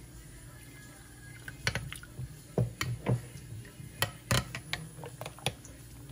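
Steel spoon stirring thick raita in a cut-glass dish, clinking irregularly against the glass about a dozen times, starting about a second and a half in.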